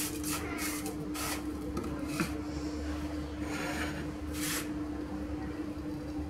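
Fingers rubbing and tossing shredded coconut in a plastic bowl: a run of short, dry rustling scrapes over the first four or five seconds, then quieter. A steady low hum runs underneath.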